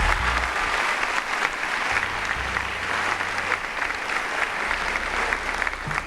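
Audience applauding: many people clapping steadily, filling a hall.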